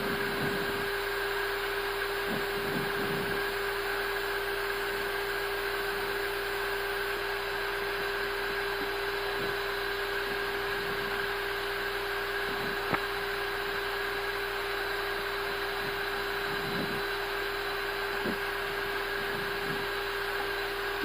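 Steady hum inside a parked Airbus A320 cockpit with both engines shut down: even fan-like noise from the avionics and cockpit ventilation, with a steady electrical hum tone matching the aircraft's 400 Hz power supply. A faint click about 13 seconds in.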